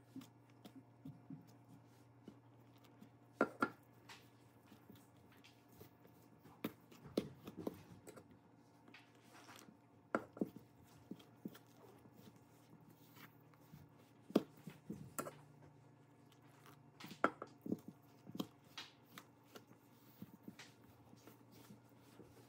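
Spatula stirring flour and water into a thick batter in a stainless steel mixing bowl: soft, irregular scrapes and clicks as it drags through the flour and knocks the bowl.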